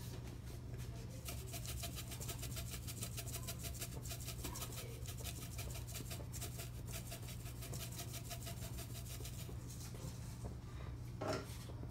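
Dried herbs being sprinkled into a pan of tomato sauce: a fast, regular run of dry crackling ticks starting about a second in and stopping near the end, over a steady low hum.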